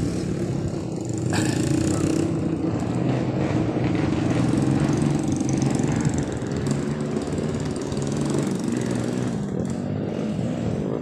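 Dirt bike's engine running steadily at an even pitch, a little louder for a few seconds after about a second and a half.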